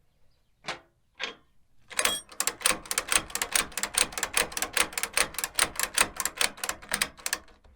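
A ratchet clicking in a fast, even run of about five or six clicks a second, after two single clicks, as a tie-down's mounting hardware is tightened.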